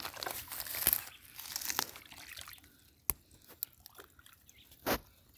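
A hand digging and scooping wet mud and water, with squelching, rustling and sharp clicks through the first couple of seconds. After that it goes quieter, with a few single sharp clicks and knocks.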